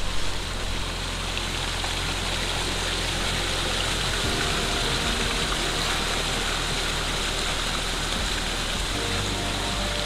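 Small mountain stream running over mossy boulders in little cascades, a steady rushing of water, with soft background music underneath.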